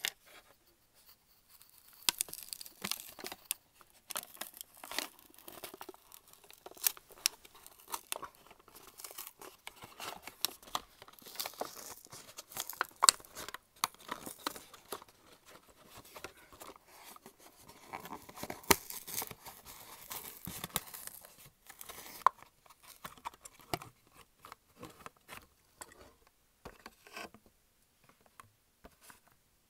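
Blister packaging of a die-cast toy car being torn open by hand close to the microphone: the card backing ripping and the clear plastic blister crinkling and snapping in irregular crackles. The tearing thins out over the last few seconds.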